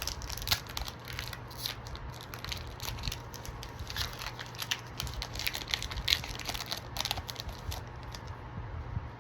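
Foil wrapper of a Pokémon trading card booster pack crinkling and tearing as the pack is ripped open, with many irregular sharp crackles.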